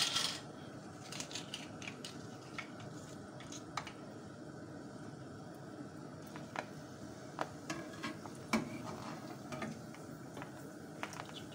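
Oil sizzling steadily as semolina puris (gol gappe) deep-fry in a pan, with scattered light clicks and taps of a metal slotted spoon against the pan.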